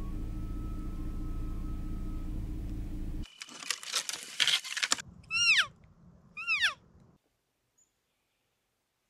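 A steady low hum. About three seconds in, pine branches rustle and crackle as they are handled. Then come two high, falling cow elk mews about a second apart, each sliding from a squeal down to a lower note.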